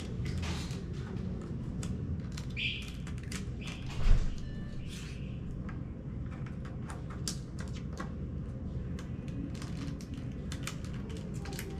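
Small plastic toy pieces clicking and clattering as they are fitted together by hand, with one louder thump about four seconds in.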